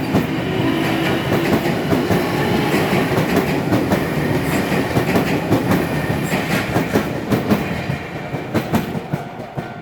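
Keio Inokashira Line electric train passing close by. Its wheels clatter over rail joints in a rapid run of clicks, and the noise fades away near the end as the train moves off.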